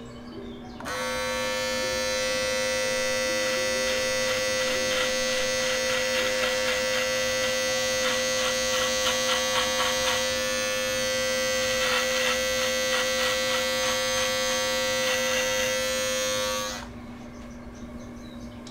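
Corded electric hair clippers switched on about a second in and buzzing steadily, with short rasps as the blades run through thick hair, then switched off shortly before the end.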